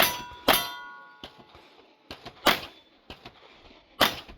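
Pistol shots during a timed shooting stage: four loud reports, two close together at the start, one about two and a half seconds in and one near the end, with steel targets ringing after hits and fainter pings between shots.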